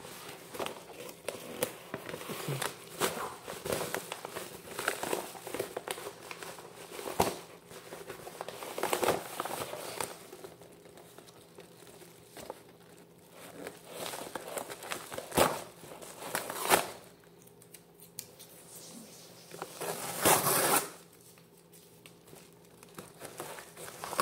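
Packaging being handled and opened by hand: irregular rustling, crinkling and clicks, with a few louder crackles and one longer rustle near the end.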